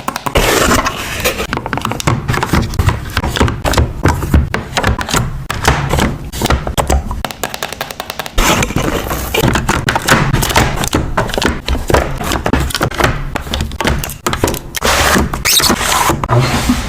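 Close-miked handling of journaling stickers and paper: a dense, irregular run of crackles and clicks with soft thuds underneath, pausing briefly about halfway.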